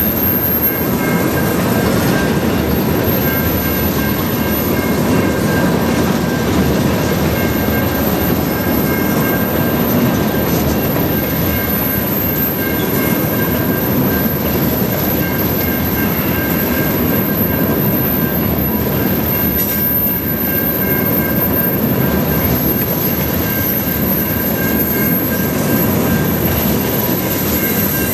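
Tank cars of a freight train rolling past at steady speed: a continuous rumble and rattle of steel wheels on rail, with faint steady high tones above it.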